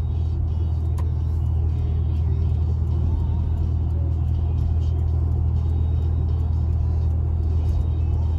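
Cabin noise of a classic Rover Mini at highway speed: a steady low rumble of engine and road, with one sharp click about a second in.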